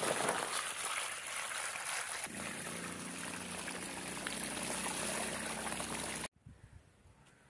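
Water poured from a plastic container through a plastic colander, splashing steadily down into a sack. It cuts off suddenly about six seconds in.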